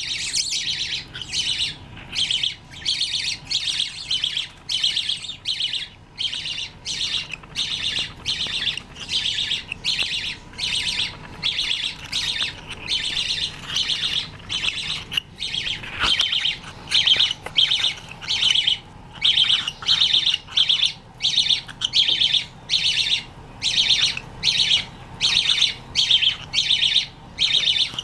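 Pet cockatiel and budgerigars calling: a short, high, squawky call repeated over and over at an even pace, a little more than once a second.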